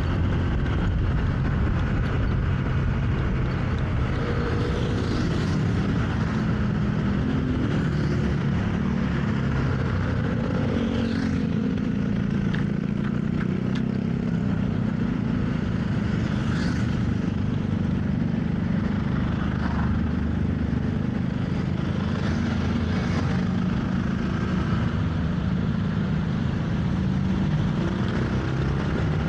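Motorcycle engine running on the road, with steady wind and road noise over it; the engine pitch rises and falls as the speed changes.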